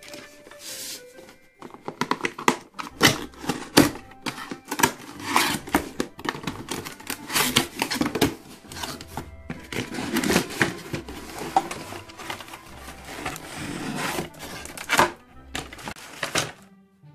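Toy packaging being unboxed by hand: irregular cardboard and plastic rustling, crinkling and tearing with many sharp clicks and knocks, over quiet background music.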